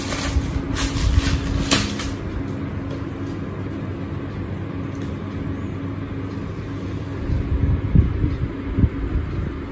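A plastic packet crinkles as metal earrings are pulled out and handled, in a few sharp crackles over the first two seconds. Then a steady low hum, with a few dull low thumps near the end.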